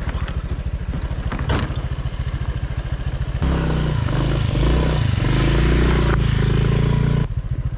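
Motor scooter engine running at low revs, then revving harder for about four seconds from around the middle, its pitch rising and falling, before dropping back to a lower speed near the end.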